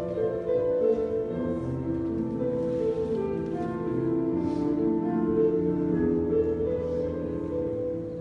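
Slow instrumental music of long, overlapping held notes.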